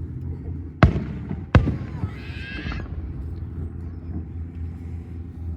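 Two fireworks shells bursting about a second in, less than a second apart, each a sharp bang with an echoing tail. A brief high squeal follows, over a steady low hum.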